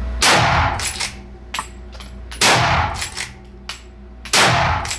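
Three shots from a Strasser RS 14 Tahr straight-pull bolt-action rifle in 7mm Remington Magnum, about two seconds apart, each with a short fading tail. Smaller sharp clicks of the straight-pull bolt being worked come between the shots.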